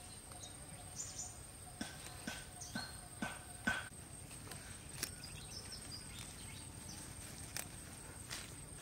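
Herb stems snapping and leaves rustling as sprigs are picked by hand, a series of short crisp snaps, most of them in the first four seconds, over a steady high-pitched insect drone.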